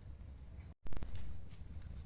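Wood fire in a fireplace crackling over a low steady rumble, with scattered sharp pops. The sound cuts out for an instant just under a second in, then comes back louder with a cluster of pops.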